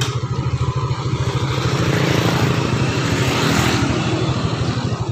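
A vehicle engine idling close by with a steady, rapid beat. A passing vehicle swells and fades around the middle.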